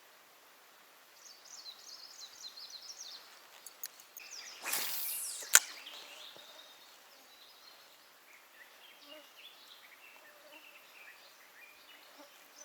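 A spinning rod being cast: about five seconds in, a short swish with line hissing off the reel, ending in one sharp click.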